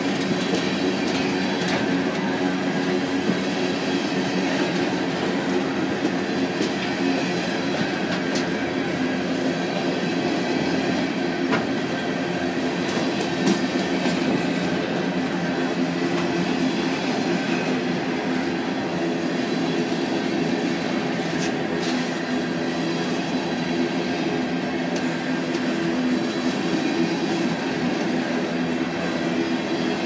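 Empty coal hopper cars of a freight train rolling past: a steady rumble and rattle of steel wheels on rail, with scattered sharp clicks.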